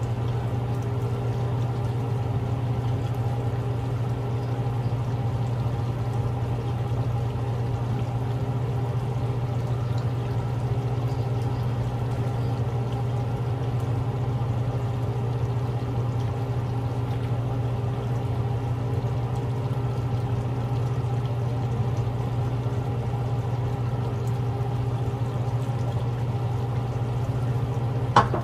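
A steady machine hum, low and even, with several fainter steady tones above it. One sharp knock near the end.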